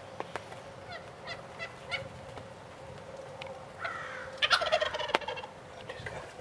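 Wild turkey gobbling about four seconds in, a loud, rapid, rattling call that falls in pitch. Shorter calls from the flock come before it.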